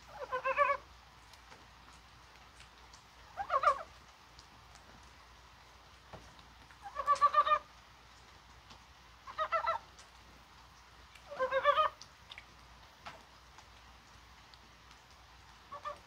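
Korean brown frogs (산개구리, mountain frogs) calling in early-season breeding. Five short calls, each a quick run of rapid pulses lasting under a second, come a few seconds apart, with a faint sixth just starting at the end.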